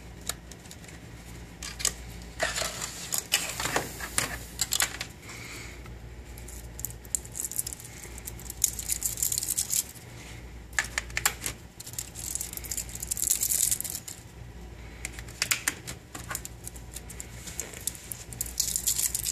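Small plastic clicks and rattles as AA batteries and the battery cover are handled and fitted into the battery compartment of a Casio ClassPad II graphing calculator, with bursts of plastic rustling in between.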